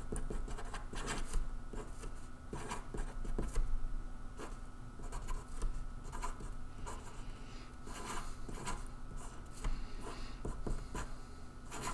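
Marker pen writing on paper: short, irregular scratching strokes as letters and circles are drawn, over a faint steady hum.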